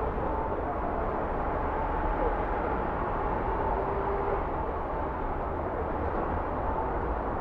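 Steady city road-traffic noise, a continuous low rumble with no distinct events.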